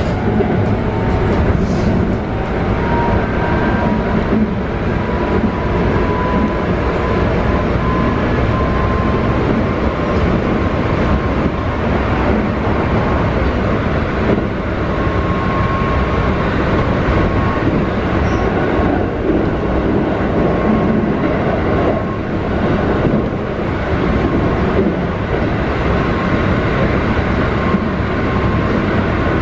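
Keikyu 600 series commuter train running, heard from inside a motor car. Steady wheel-and-rail rumble carries the faint whine of the Toyo GTO-VVVF traction inverter, which rises in pitch over the first few seconds and then holds steady.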